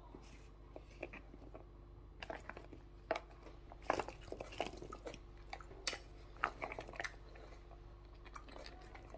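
Sliced tomato, cucumber and carrot pieces tipped and scraped off a plate and a spatula into a bowl of shredded cabbage: irregular soft crunchy rustles and taps as the crisp pieces land.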